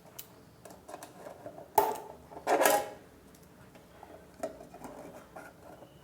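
The security tag on a metal coin box being pulled open by hand: a sharp snap just under two seconds in, then a short rustling scrape, with light handling clicks around it.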